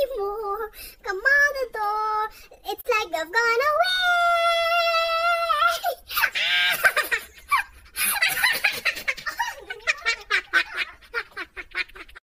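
A young woman's high-pitched voice, playful and giggly, with a long held squeal a few seconds in, a shriek right after it, and then quick bursts of laughter.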